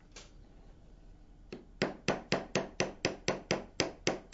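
Small hammer tapping a thin metal bar, driving a retaining pin through a cam-lock's thumb bar. A rapid, even run of about a dozen sharp metallic taps, about four a second, starts about a second and a half in.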